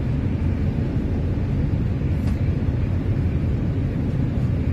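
Steady low rumble of a passenger ferry under way, its engine drone mixed with the rush of water and air.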